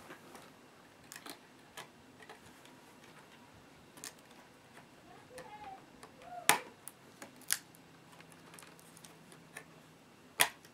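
Scattered small clicks and taps of a Dell D830 laptop's parts being handled during disassembly, at irregular spacing, with a few sharper clicks in the second half.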